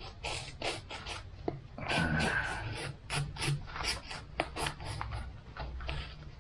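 Knife cutting through the top of a sealed plastic retort food pouch, a quick run of short strokes, about three a second, with one longer cut around two seconds in.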